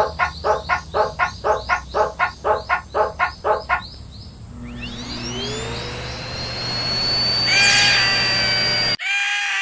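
Japanese level-crossing alarm going "kan-kan", about four pitched strikes a second, which stops about four seconds in. A rising siren-like whine then climbs and holds as a steady high tone. About a second before the end it cuts off abruptly into a different tone.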